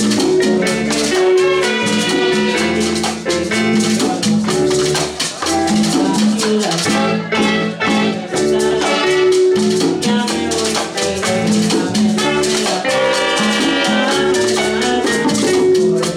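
Live salsa band playing, with conga and bongo drums, timbales, trumpet and trombone.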